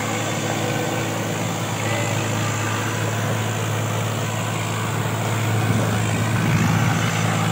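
Swaraj 855 tractor's three-cylinder diesel engine running steadily while pulling two trailers loaded with sugarcane, getting somewhat louder about two-thirds of the way through.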